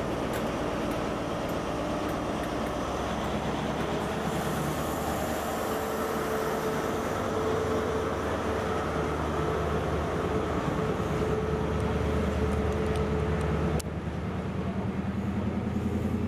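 Class 43 HST passing close at speed: steady rail rumble from the coaches, then the rear power car's diesel engine going by with a steady whine. About 14 seconds in it cuts abruptly to another HST's diesel engine running as it approaches.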